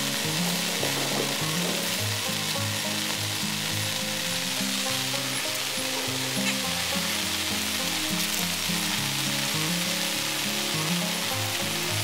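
Steady hiss of rain, with background music playing a stepping low melody beneath it.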